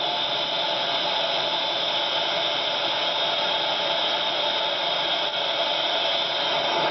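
Steady, loud machinery noise of a steam cargo ship's engine room: a dense, even hiss with no distinct strokes or rhythm.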